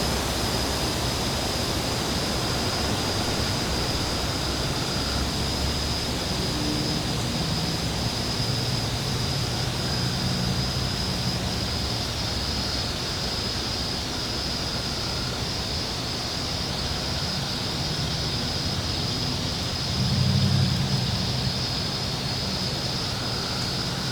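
Steady wind blowing, a continuous rushing noise with low rumbling gusts, the strongest about twenty seconds in. A thin, steady high tone runs under it.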